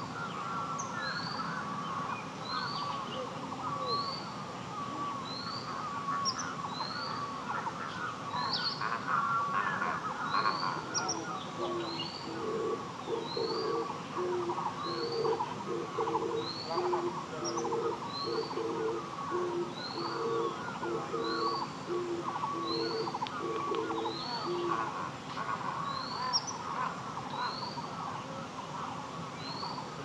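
Forest birds calling: one bird repeats a short high call about every second and a half, over a steady chatter of other birds. Through the middle a series of short low hooting notes sounds, like an owl's.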